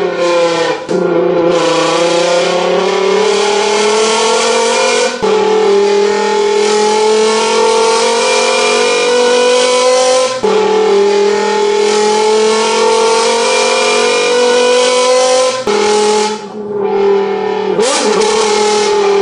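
A man imitating a Lamborghini V10 engine with his voice, buzzing into an empty aluminium beer can held to his lips. The engine note climbs slowly through each long 'gear' and drops sharply, like an upshift, about one, five, ten and sixteen seconds in.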